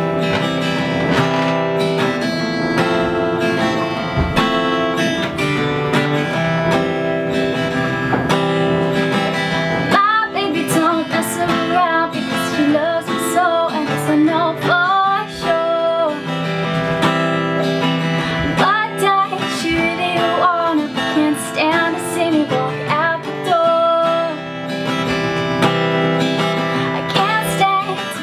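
Acoustic guitar being strummed and picked in steady chords, with a woman's voice singing a melody over it from about ten seconds in.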